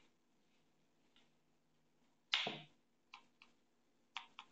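Light clicks of a stylus tip tapping on a tablet screen while handwriting, a few single and paired taps, with one brief louder breathy noise about halfway through.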